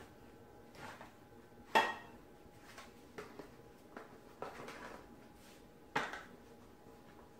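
A knife, a metal baking pan and plastic food containers knocking and clinking as food is cut and packed into portions. Light scattered clicks, with a louder clink about two seconds in and another about six seconds in.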